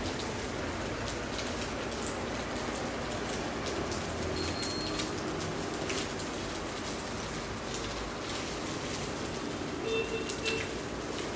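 Fish frying in hot oil in a pan: a steady sizzle with crackling pops. A few light clinks of a utensil against the pan about ten seconds in.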